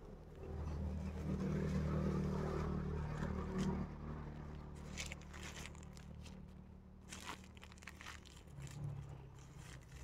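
Clear plastic wrap crinkling and crackling in short bursts as gloved hands peel it away from the rooted moss ball of a rubber plant air layer. A low rumble is the loudest sound over the first few seconds, then fades.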